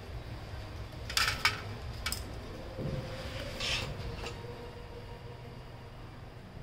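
A few clicks and light clatters of small plastic and metal printer parts being handled, over a steady low hum.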